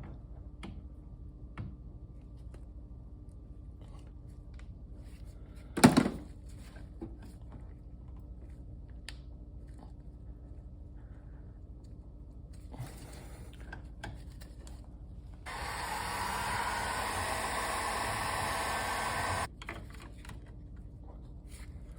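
Hands and tools working a rotary air control valve loose in a car engine bay: light clicks and scrapes, one sharp knock about six seconds in, then a steady rushing hiss for about four seconds near the end.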